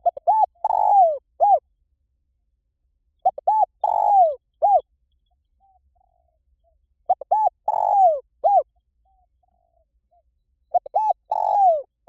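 Spotted dove cooing: four phrases about every three and a half seconds, each two or three short coos, a longer falling coo and a short closing coo.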